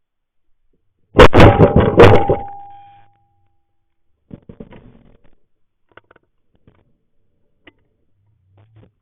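Three shotgun blasts in quick succession, all within about a second and very loud, the last followed by a brief ringing tone. After them come a few faint clicks.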